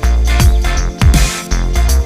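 Background electronic music with a heavy bass and a steady, driving beat.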